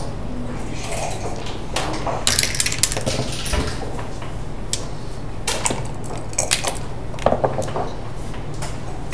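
Backgammon being played: checkers clack as they are moved on the board, and dice rattle and are thrown, in clusters of sharp clicks. Near the end comes the click of the game clock's button.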